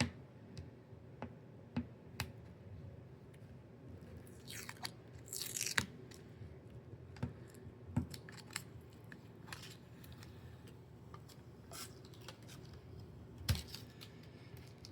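Protective paper being peeled and torn off an acrylic panel: scattered small crackles and ticks, with two longer rasping rips about four and a half to six seconds in.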